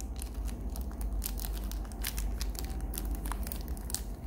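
Hands handling a Zippo lighter: irregular light clicks and rustling.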